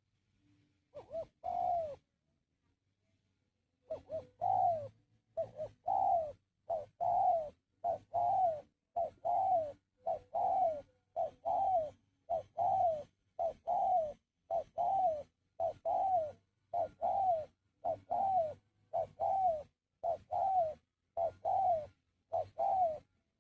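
Spotted dove (tekukur) cooing over and over: short coos that dip in pitch, two about a second in, then after a short pause an even run of about two a second.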